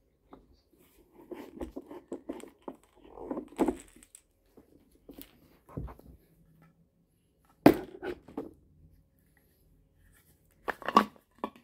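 Plastic pressure-washer parts being handled: rustling and light clicks, a sharp knock about two-thirds of the way through, and a short cluster of knocks near the end.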